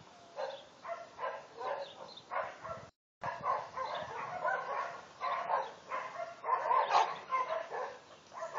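A dog barking repeatedly in a quick series of short barks, two or three a second, with the sound cutting out for a moment about three seconds in.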